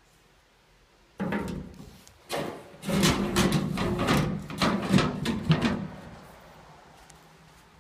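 Handling noise at a furnace air handler: the filter frame and sheet-metal panel rattling and scraping. It starts with a sudden clatter about a second in and goes on in irregular knocks and scrapes until about six seconds in.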